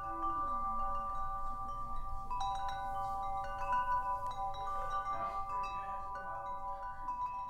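Chimes ringing: many metallic notes struck at different moments, each ringing on and overlapping the others, as an interlude between sections of the narration.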